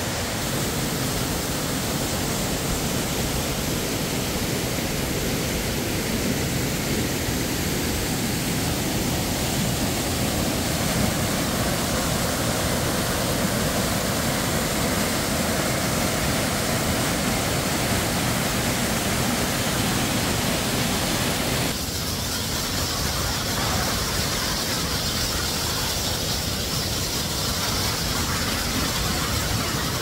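Waterfall cascades pouring into a pool, a steady rush of falling water. About two-thirds of the way through, the sound suddenly turns brighter and hissier.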